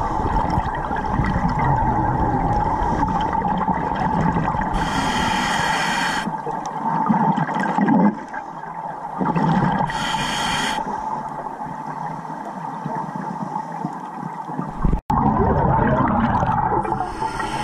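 Underwater sound of scuba diving heard through a camera housing: muffled water noise under a steady hum. Three bursts of bubbling hiss, about a second long each, come from a diver exhaling through a regulator. The sound drops out for an instant near the end.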